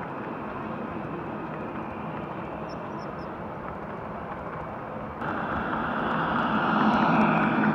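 Gauge 1 model diesel train with passenger coaches running along the track: a steady rolling rumble that suddenly gets louder about five seconds in, as the coaches pass close by.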